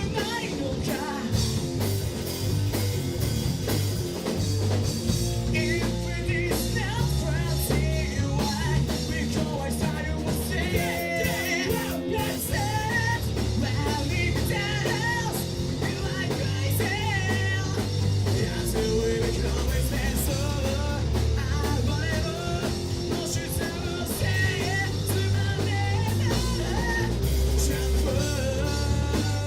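Rock band playing live: drum kit, bass and electric guitars, with singing over the top.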